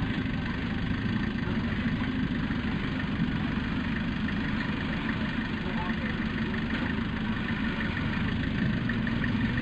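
Hyster forklift engine running steadily at low revs as the forklift creeps forward carrying a loaded pallet.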